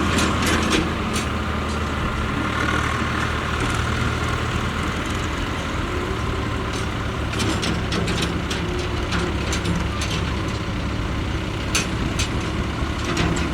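Diesel engine of a Mahindra Earthmaster SX backhoe loader running steadily, with scattered sharp knocks and clanks from the machine at work.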